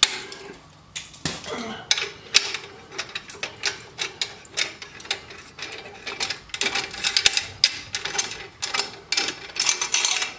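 Socket ratchet wrench clicking in quick strokes as it backs out the bolt on a motorcycle exhaust pipe bracket, followed by metal clinks and rattles as the bracket and bolt are worked free by hand.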